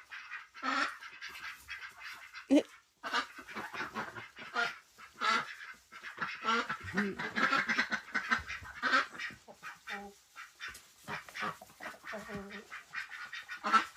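A flock of ducks quacking, many short repeated calls, some overlapping, with brief pauses between bursts.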